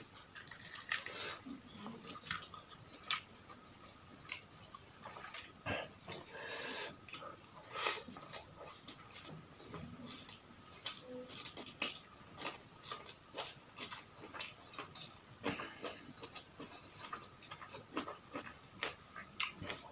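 A person eating close to the microphone: irregular chewing and crunching of food.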